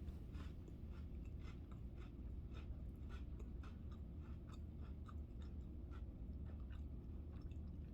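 Faint chewing of chicken salad on Ritz crackers, with many small irregular crunches and mouth clicks over a steady low hum.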